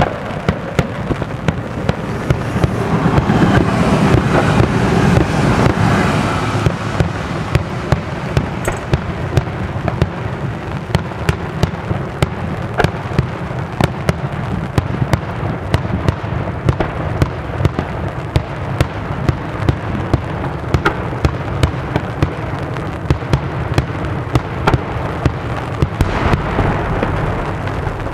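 Daytime aerial fireworks going off in a continuous barrage. A rolling, crackling roar of bursts comes first. After about six seconds it gives way to a rapid string of sharp bangs, several a second.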